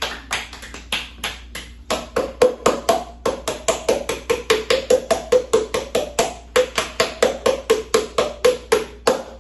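Clap-whistling: cupped hands clapped in quick succession, each clap giving a short pitched pop, the pitches changing to play a tune. The claps start sparse and soft, then settle into a steady run of about four a second after two seconds.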